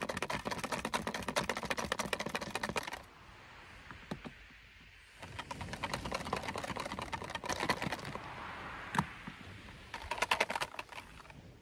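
Metal balloon whisk beating egg yolk and oil in a glass bowl, a fast run of ticks against the glass. The beating stops for about two seconds a few seconds in, then starts again in further runs. The oil is being whisked into the yolk and the mayonnaise is emulsifying and starting to thicken.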